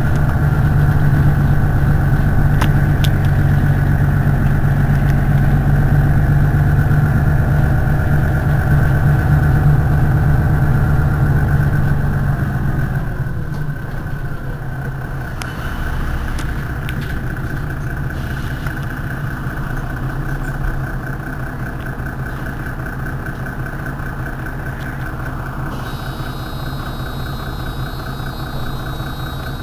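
Mercedes-Benz Citaro city bus's engine idling steadily while the bus stands at a stop. About thirteen seconds in, the engine note drops and grows quieter, then runs on evenly.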